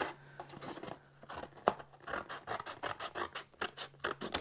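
Hand scissors cutting a piece of cardboard: a run of short, irregular snips, with the cardboard rustling as it is handled.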